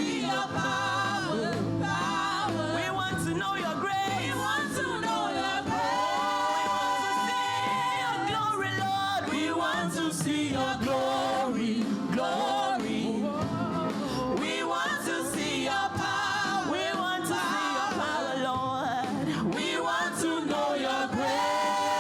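Church choir singing a gospel song, the voices held in long notes and sliding phrases without clear words.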